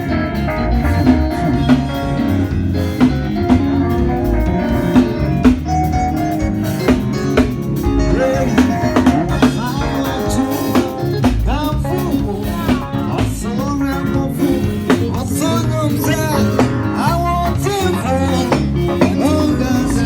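A band playing during a sound check: electric-style guitar over a drum kit. From about halfway through, a melodic line bends and slides in pitch over the accompaniment.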